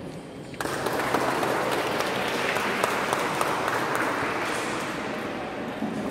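Applause: a crowd clapping, breaking out suddenly about half a second in and easing off slightly near the end.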